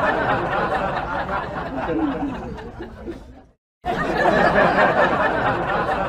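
A group of people laughing and chattering, likely a dubbed-in laugh track. It drops out briefly about three and a half seconds in, then comes back.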